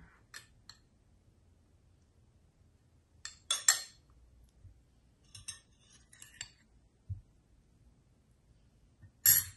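Scattered light clinks and clicks of kitchenware, utensils against dishes, in short bursts: a louder cluster about three and a half seconds in, a dull knock a little after seven seconds, and a sharp loud clink just before the end.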